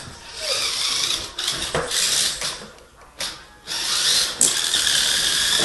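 Electric motor and gears of a radio-controlled off-road truck whirring as it drives and climbs over floor cushions, stopping briefly about three seconds in, then running again.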